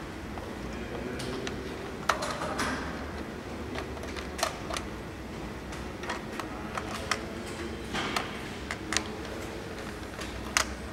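Irregular light clicks of a thin metal tool catching on the needles of a circular knitting machine as the yarn is set on and off the needles by hand, over a steady low hum.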